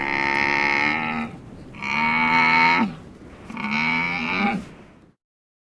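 A camel calling: three long, pitched bellowing calls, each about a second long, with short gaps between them.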